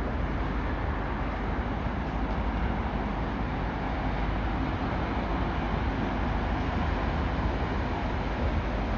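A steady, distant roar of engines across an airfield, with no clear pitch and no separate events.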